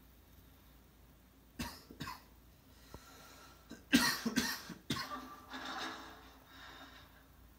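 A person coughing: two short coughs, then a harder run of several coughs about four seconds in, trailing off into a softer one.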